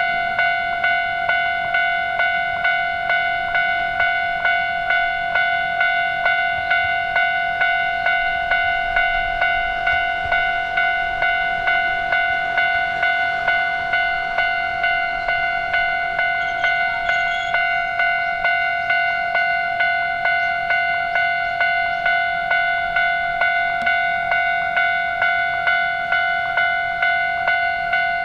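Japanese railway level-crossing warning bell ringing its steady "kan-kan" alarm, a high two-tone-free clang repeating about twice a second without a break.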